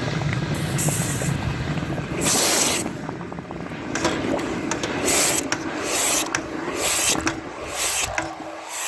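Repeated rough scraping and rubbing strokes, roughly one or two a second, as moulding sand is cleaned off a freshly cast bronze anvil. A low steady hum sits under the first half.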